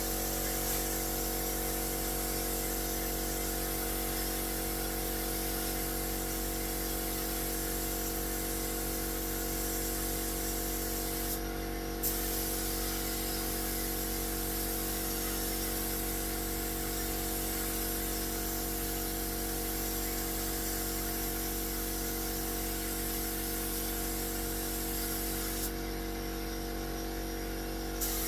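Compressed-air paint spray gun hissing steadily, the trigger let go briefly about twelve seconds in and again for a couple of seconds near the end. Underneath, a home air compressor hums steadily throughout.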